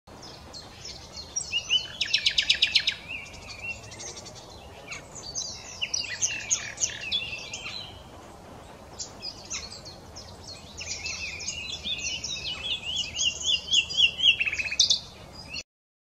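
Common nightingale singing loud, varied phrases with pauses between them: a fast rattling trill about two seconds in, and near the end a run of repeated rising whistles that builds in loudness.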